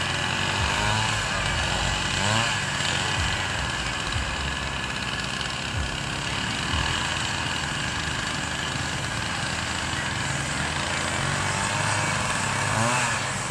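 Small engine of a lure-coursing machine running steadily as it pulls the lure, its pitch rising briefly about two seconds in and again near the end.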